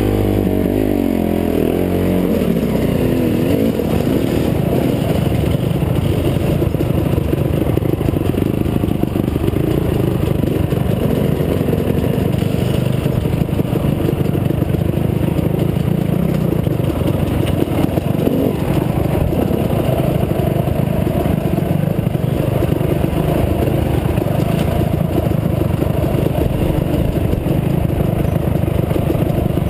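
Dirt bike engine heard close up from the riding bike itself, at low speed on rough rocky trail. The engine note rises and falls over the first couple of seconds, then runs steadily.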